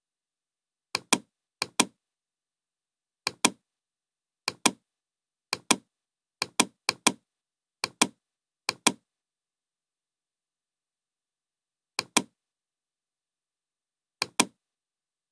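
Computer mouse button clicks, each a quick press-and-release double click, about eleven of them at uneven intervals, bunched in the first nine seconds and two more near the end.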